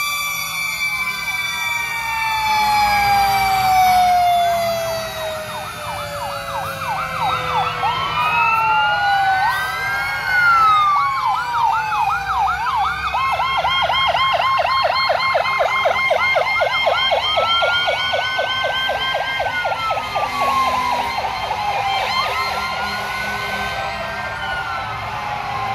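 Several emergency-vehicle sirens sounding at once as a fire engine and an ambulance pass. A siren tone falls away in pitch over the first few seconds, then slow rising-and-falling wails overlap a fast yelp.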